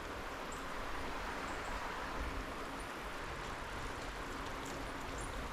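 Steady rushing hiss of creek water running over rocks.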